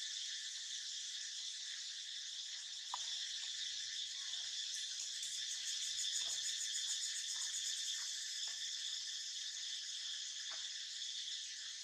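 Steady chorus of insects, a high drone in several pitches at once, with a rapid pulsing insect call joining in about five seconds in and fading out about three seconds later. A few faint clicks are scattered through it.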